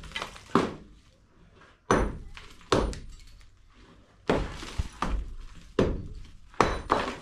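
Hammer blows on a masonry wall being broken out for a doorway: about eight irregular, sharp knocks, some with a cracking, breaking edge.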